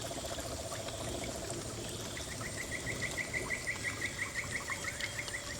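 Water trickling and splashing steadily from a small decorative waterfall. From about two seconds in, a fast even run of short high chirps, about five a second, plays over it.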